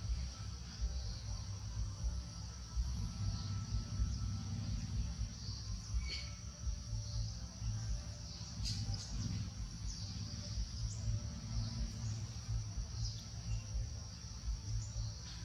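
Steady high-pitched insect chorus droning without a break, over an uneven low rumbling noise on the microphone, with a few faint short chirps scattered through.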